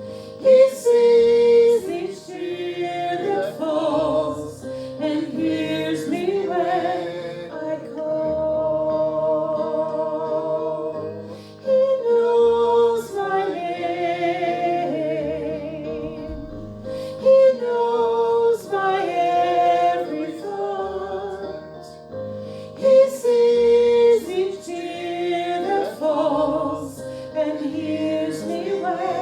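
Worship song: a singer holding notes with vibrato in phrases of a few seconds, over sustained instrumental accompaniment with low bass notes.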